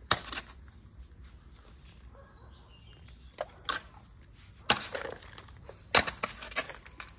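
A series of sharp knocks and cracks at irregular intervals: one at the start, two lighter ones about three and a half seconds in, a louder one near five seconds, and a quick run of them around six seconds.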